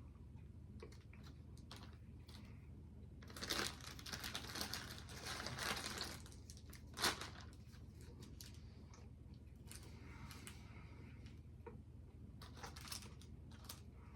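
Wrapper of a small chocolate bar crinkling and tearing as it is unwrapped by hand, in a run of rustling for a few seconds, a sharp crackle, then lighter crinkles near the end.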